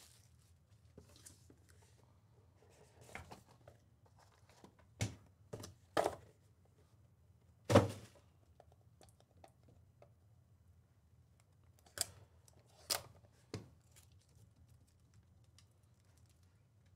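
Clear hard-plastic trading card cases being handled, picked up and set down on a mat: a handful of short clicks and knocks, the loudest about eight seconds in, over a faint hum.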